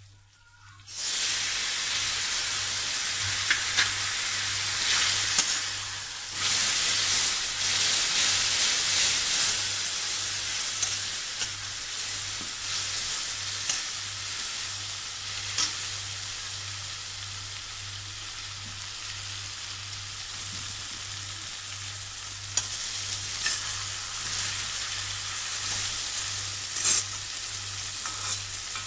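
Tamarind paste hitting hot oil with fried onions and spices in a kadhai: a loud sizzle bursts in about a second in, surges again around six seconds, then slowly dies down as the masala fries. A metal spatula stirring the masala clicks and scrapes against the pan now and then.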